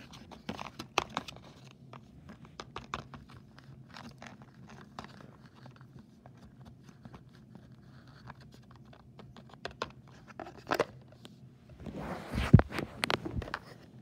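Small plastic toy figures being handled and set down in a cardboard box: scattered light clicks, taps and scrapes against the cardboard. Near the end comes a louder cluster of bumps and rustling.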